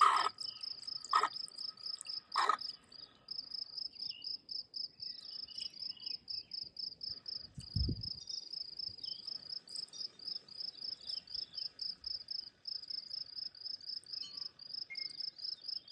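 Insects chirping steadily in a fast, high-pitched pulsing trill, with three sharp clicks in the first few seconds and a dull thump about eight seconds in.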